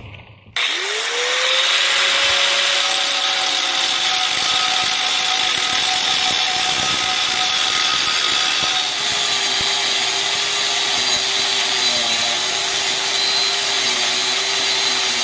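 Power cutting tool spinning up and cutting through a steel chainsaw bar with a loud, steady, hissing grind. Its whine rises as it starts, about half a second in, and drops a little in pitch about nine seconds in.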